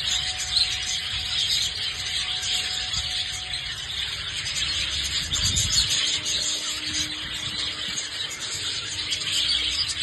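A flock of budgerigars chattering continuously, many high twittering chirps overlapping, with a low rumble underneath that swells about five and a half seconds in.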